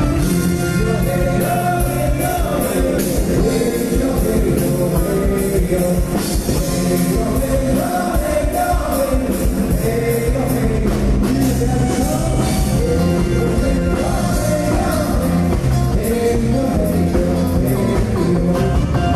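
A live band playing loud, upbeat music with a steady beat and singing.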